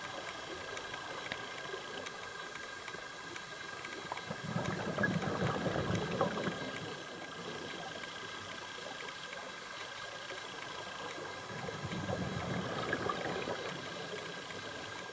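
Scuba divers' regulator exhaust bubbles heard underwater: two bursts of bubbling, about seven seconds apart, as a diver exhales, over a steady faint high whine.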